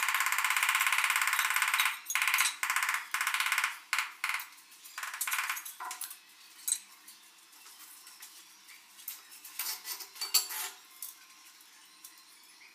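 Wall-tiling work on ceramic tiles. For about two seconds there is a dense, rapid buzzing tap against the tiles, then shorter bursts of it, and after that scattered sharp clicks and knocks of tiles and tools.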